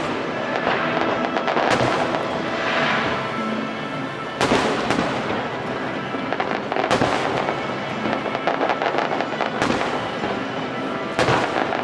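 Fireworks bursting overhead: a string of sharp booms every two or three seconds amid steady crackling, with music playing underneath.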